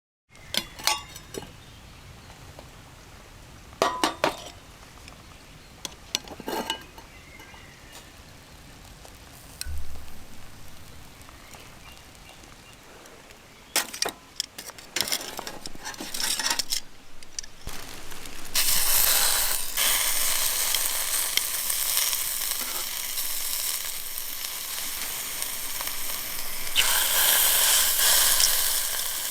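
A few sharp metal clinks and knocks of cooking gear, then food sizzling on a hot iron grill plate; the sizzling starts a little past halfway and swells louder near the end.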